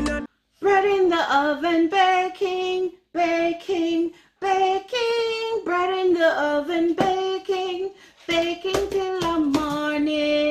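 A woman singing alone without accompaniment, in short phrases with brief breaks, ending on one long held note.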